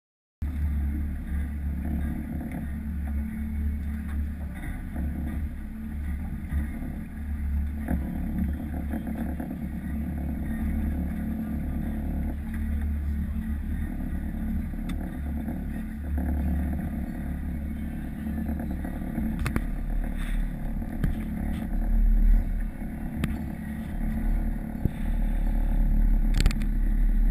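Boat motor running steadily while the boat is underway, a constant low hum that grows louder over the last several seconds.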